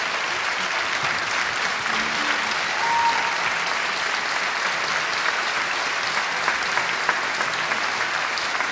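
Audience applauding: steady, dense clapping from a large crowd in a theatre hall.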